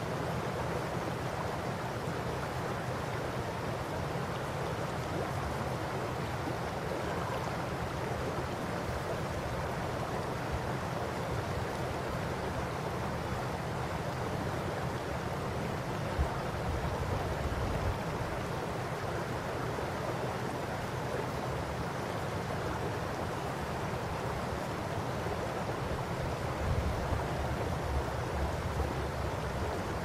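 A shallow river runs over gravel and stones with a steady rushing babble. Wind buffets the microphone in low rumbles about halfway through and again near the end.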